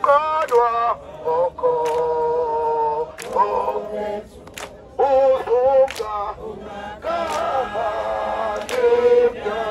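Unaccompanied group singing of a political song: a man leads through a portable megaphone loudspeaker and supporters sing along together.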